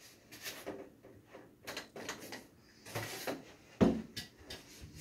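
Handling noise as a foam board and a spring clamp are taken down from expansion poles by hand: scattered clicks, knocks and rustles, with one loud thump nearly four seconds in.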